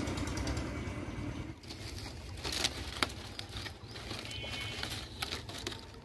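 A steady low rumble, then, after about a second and a half, dry palm fronds rustling and crackling as a hand pushes in among them, with a few sharp snaps.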